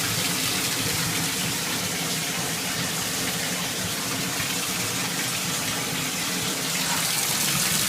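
Water running steadily from a tap into a bathtub, filling it for a dog's bath.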